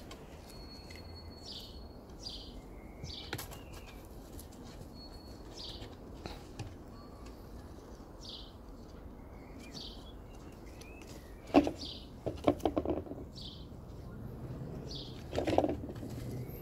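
Small garden birds chirping in short high calls again and again over a quiet outdoor background, with a few brief louder low sounds about two-thirds of the way through and again near the end.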